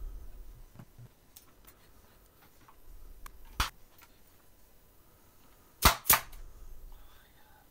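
Three sharp knocks: a single one about three and a half seconds in, then a louder pair a quarter second apart near six seconds, with a low rumble near the start.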